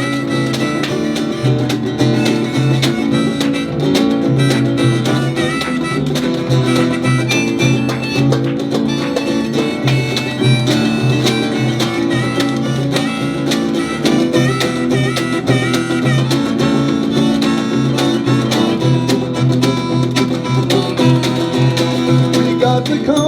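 Live band playing an instrumental break between verses: guitar-led music with a steady beat and a lead melody line over it.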